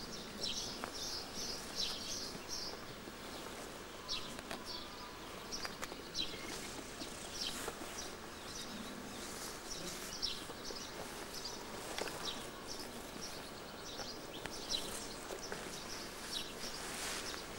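Small birds chirping repeatedly in short, high notes over a steady outdoor hiss, with a few scattered soft clicks and rustles close to the microphone.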